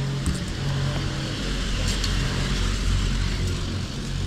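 Skis sliding and scraping over packed snow on a downhill run, a steady hiss over a low rumble of wind on the microphone.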